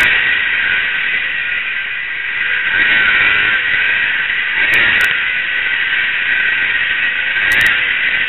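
Racing snowmobile's engine and rushing wind heard through a helmet camera's microphone as a harsh, distorted noise, swelling and easing a few times with the throttle.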